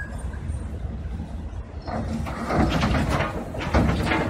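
Diesel engine of a tracked piling drilling rig running with a steady low rumble; from about halfway in come loud, irregular scraping and clanking noises as the heavy rig shifts and tips forward on the trailer ramps.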